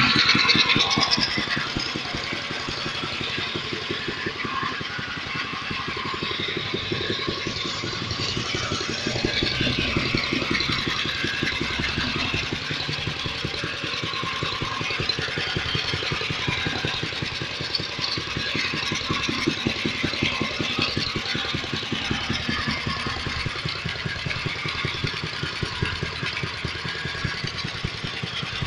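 Small engine of a homemade tractor running steadily at idle, briefly louder in the first second.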